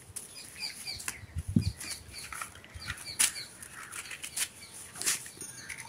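A few scattered sharp clicks and taps, with small birds chirping repeatedly in the background.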